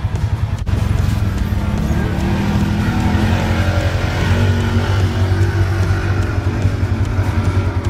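Side-by-side UTV engine running steadily with a fast, even pulsing beat.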